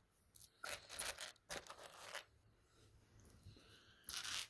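Clear plastic LEGO pieces being handled by hand: several short bursts of plastic clatter and scraping, the last near the end.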